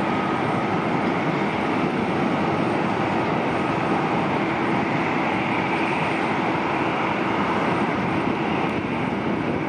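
Boeing 767-300 freighter's twin General Electric CF6-80C2 turbofans at takeoff climb thrust as the jet climbs away: a steady, even jet rumble with a faint constant hum in it.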